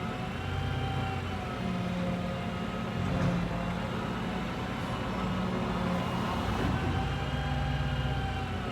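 Street traffic: vehicle engines running, with a steady low hum and engine tones that slowly rise and fall.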